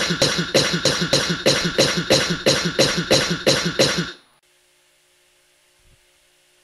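A person's cough, chopped and repeated rapidly about four times a second as a remix edit. It cuts off abruptly about four seconds in, leaving a faint steady hum.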